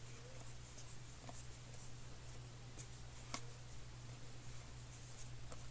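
Baseball cards being thumbed through and slid off a stack, faint scattered ticks with one sharper click about three and a half seconds in, over a steady low hum.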